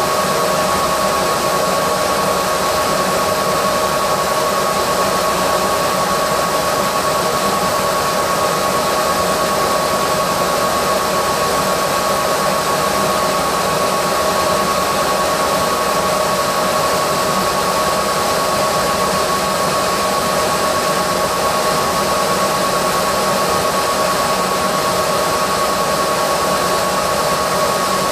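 Laser engraver running while it engraves wood: a steady fan-like rush with a constant whine, unchanging throughout.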